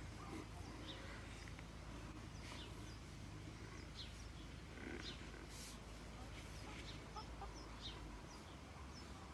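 Backyard hens clucking faintly, with brief high chirps about once a second.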